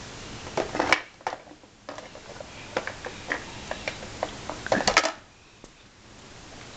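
Hard plastic blocks clattering and knocking against a plastic toy bucket as it is handled and tipped. The knocks come in an irregular run, with louder clatters about a second in and again just before the five-second mark.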